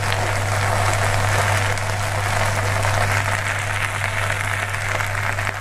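Chopped okra sizzling as it fries in oil in a non-stick kadai while a spatula stirs it, the okra nearly browned. A steady low hum runs underneath.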